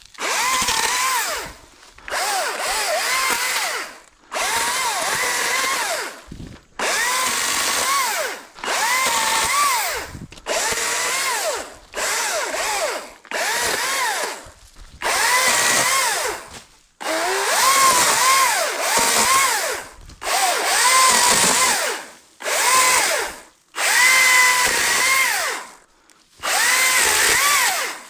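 ECHO DCS-2500T battery chainsaw run in about fifteen short bursts of a second or two, stopping sharply between them. Within each burst the motor whine dips and comes back up in pitch as the chain bites into brush and wood.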